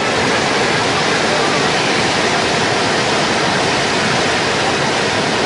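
Floodwater rushing down a gully: a steady, loud wash of water noise.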